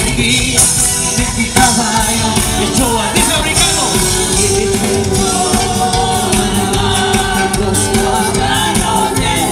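Church worship band playing a loud, steady song with drums, and voices singing along.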